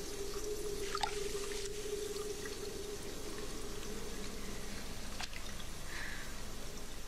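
Quiet water dripping over a faint steady hiss, with a held note that fades out about halfway through.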